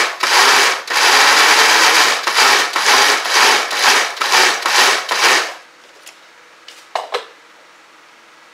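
Small electric food chopper grinding chopped onions into a chili spice paste, run in a quick series of short pulses for about five seconds and then switched off. A few clicks follow as its lid is taken off.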